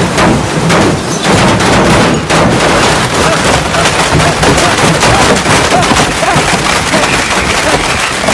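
Frogs raining down: a loud, dense barrage of thuds and splats as they hit car bodies and the wet pavement.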